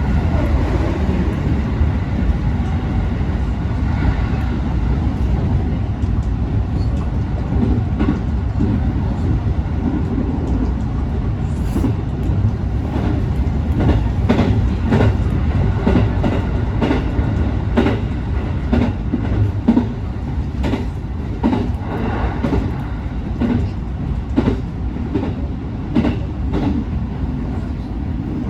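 221-series electric train running along the line, heard from inside the front car: a steady rumble from the running gear, with wheels clicking over rail joints, the clicks becoming frequent from about eight seconds in.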